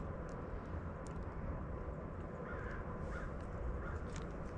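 A steady low rumble with a few faint bird calls about halfway through.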